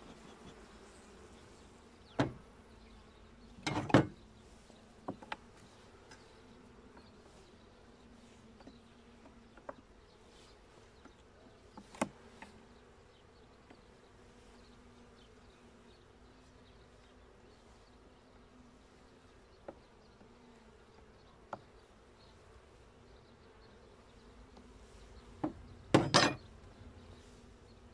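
Honeybees buzzing in a low, steady hum over an open hive, broken by a few sharp knocks and clicks from the wooden frames being handled, the loudest about four seconds in and again near the end.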